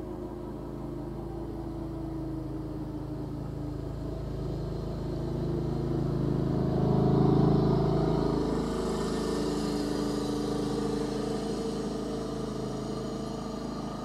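Sterling M-10 outdoor warning siren winding down, its tones sliding lower and fading. A road vehicle passes close by, loudest about seven seconds in.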